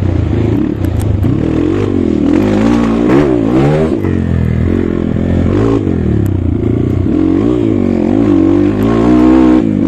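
Dirt bike engine pulling hard under load on a steep trail, its pitch rising and falling again and again as the throttle is opened and closed.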